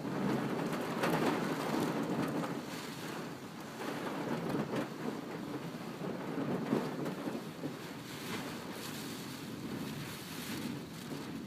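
Strong gusty wind blowing in surges, a dense steady roar that swells and eases every second or two.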